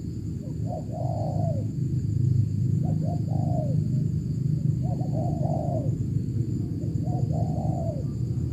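Spotted dove (tekukur) cooing: four phrases, each a couple of short notes then a longer arched coo, repeating about every two seconds. A steady low rumble runs underneath, and a faint steady high buzz sits above.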